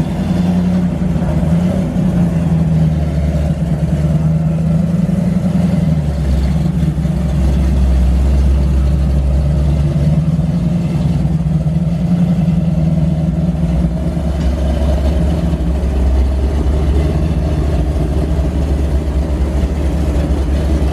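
Chevrolet Camaro SS V8 idling with a steady, deep low rumble.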